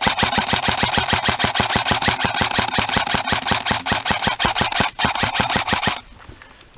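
An airsoft gun firing full-auto, a rapid, even string of shots that pauses briefly near the five-second mark and stops about a second before the end.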